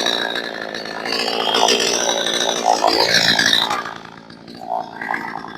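62cc two-stroke clone chainsaw with a 20-inch bar running at full throttle through a stringy bark gum log, its engine pitch wavering under load. A little under four seconds in it drops off and runs much quieter.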